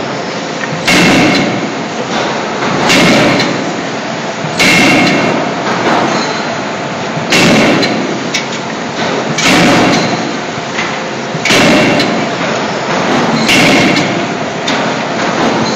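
CNC hydraulic forging hammer striking red-hot scissor blanks in its die, one heavy blow about every two seconds in a steady rhythm, each blow followed by a short ringing smear.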